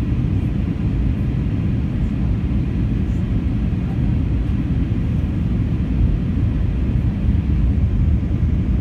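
Steady low rumble inside the cabin of an Airbus A321 airliner on its approach, the mix of airflow and engine noise heard from a window seat.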